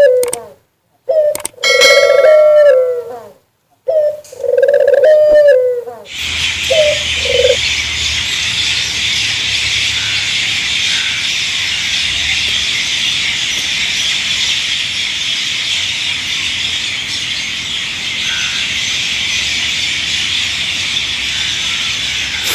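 A dove cooing in low, repeated phrases with short gaps for about the first six seconds, ending in two brief coo notes. After that comes a steady high-pitched hiss with a few faint chirps.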